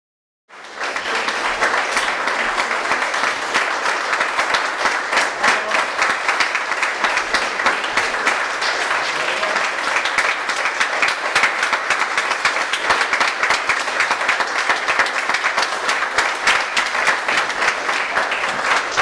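Theatre audience applauding, starting suddenly about half a second in after a moment of silence and then holding steady.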